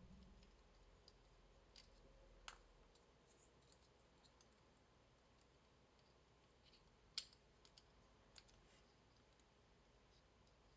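Near silence broken by a few faint, sparse clicks of plastic model-kit parts being handled and snapped together, the loudest about seven seconds in.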